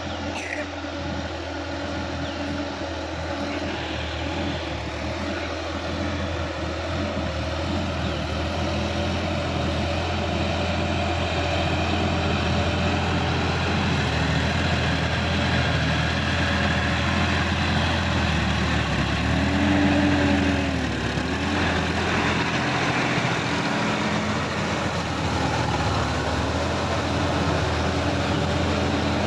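Sonalika DI-50 RX tractor's diesel engine running steadily under load as it pulls a rotary tiller through a flooded paddy field, growing louder as it comes closer. About two-thirds of the way through the engine pitch dips briefly and picks up again.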